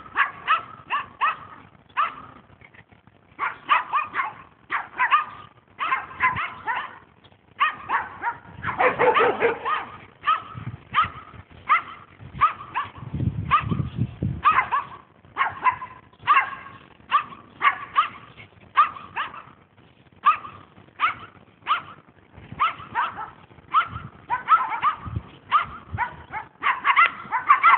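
Dogs barking over and over in short, high yaps, typical of small dogs. A deeper, longer sound comes about halfway through.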